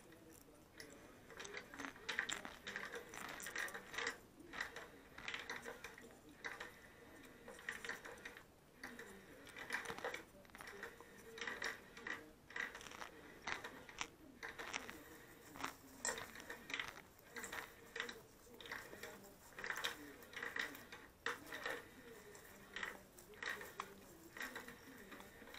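Round plastic cat toy clicking and clattering irregularly as a cat bats and paws at it, over a faint steady hum.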